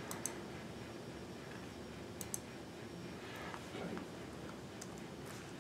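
A few faint, scattered clicks from someone working a laptop, over quiet room tone: two close together at the start, then single ones about two seconds in and near the end.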